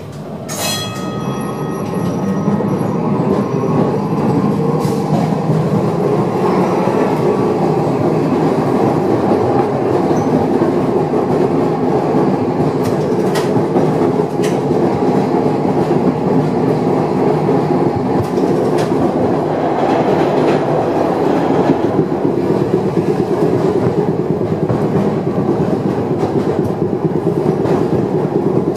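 A 1928 Milan-built Peter Witt electric streetcar pulling away and running along the rails, heard from inside the car: rumbling and clattering of the wheels, growing louder over the first few seconds, then steady. A single ringing strike near the start, and a few sharp clicks along the way.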